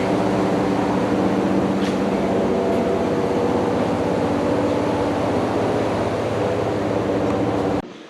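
A motor running steadily with a deep, even hum that cuts off suddenly near the end.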